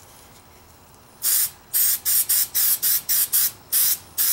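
Aerosol spray can sprayed in about ten short bursts of hiss, starting about a second in, some in quick succession.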